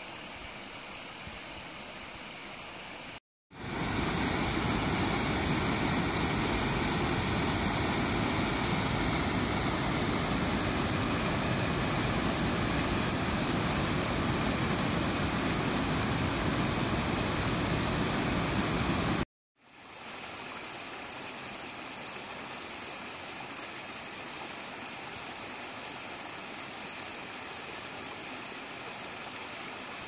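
Mountain river water running over a stony bed. After a sudden cut, a much louder, steady rush of white water pours over a rock ledge. After another short break, a small waterfall splashes into a pool, quieter again.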